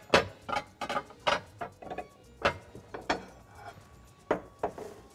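Irregular sharp knocks and clatters of kitchen utensils being handled against a wooden cutting board, about a dozen, close together at first with two more after a short pause near the end.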